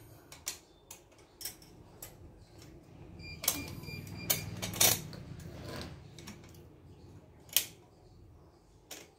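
Small metal clicks and taps as a foot pump's bolt and return spring are handled and fitted at its hinge, with a cluster of louder clinks around the middle and one sharp click about seven and a half seconds in.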